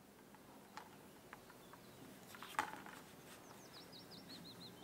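Small plastic clicks and taps as a Funko Pop vinyl figure on its plastic stand is handled and set down on a desk, with one sharper knock about halfway through. A bird faintly chirps a quick run of repeated high notes over the last second and a half.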